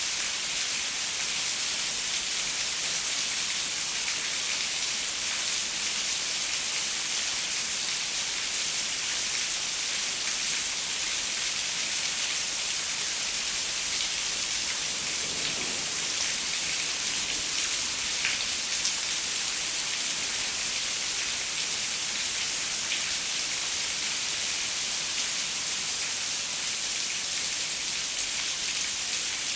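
Steady rain falling on a window, a dense even hiss with occasional single drops ticking against the glass.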